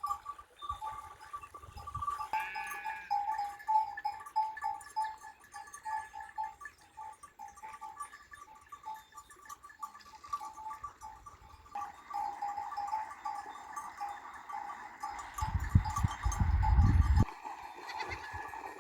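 A sheep bleats once, briefly, about two seconds in, over a steady two-note high ringing. Near the end a loud low rumble lasts about two seconds.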